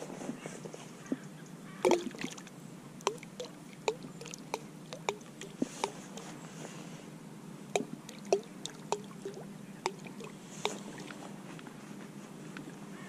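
Boilies thrown by hand plopping into the water one after another, about twenty short plops at irregular intervals, the loudest about two seconds in.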